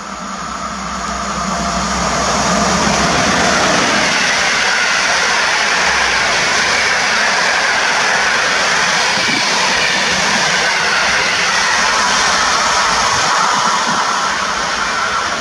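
PKP Intercity express hauled by an EP09 electric locomotive passing along the platform: a loud rush of wheels on rail and air. It builds over the first two or three seconds as the train arrives, holds steady while the coaches go by, and eases a little near the end as the last coach pulls away.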